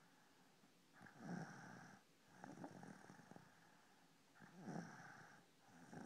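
Faint snoring: four snoring breaths, about one every one and a half seconds, the last beginning near the end.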